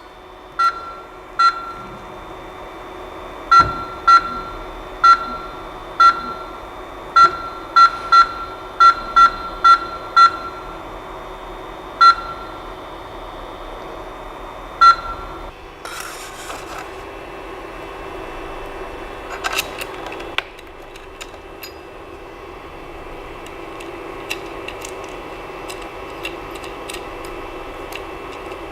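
Creality CP-01's control-panel buzzer giving about fifteen short, high beeps at irregular spacing over the first fifteen seconds as its controls are pressed, over a steady hum of the running machine. A brief hiss comes about sixteen seconds in, and soft clicks follow near the end.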